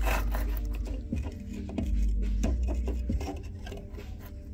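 Pointed steel tool scraping and clicking against the torched, charred center bore of a Kawasaki KDX200 flywheel, over background music.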